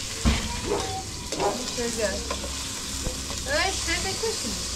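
Tomato slices sizzling in oil in a metal pan over a wood fire, with a steady hiss. A metal spoon scrapes and knocks against the pan as they are stirred, loudest just after the start.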